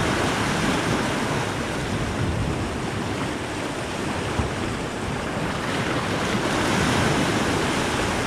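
Sea surf washing against a rocky point: a steady rushing wash of breaking water.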